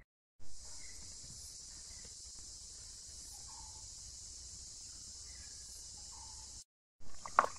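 Steady high-pitched drone of an insect chorus, with a few faint bird chirps over it. It cuts out briefly near the end, followed by a few sharp knocks.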